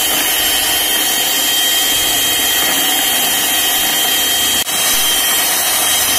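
Panasonic electric hand mixer running steadily, its beaters whipping cream in a plastic bowl, with a steady high motor whine. The sound drops out for an instant about two-thirds of the way through.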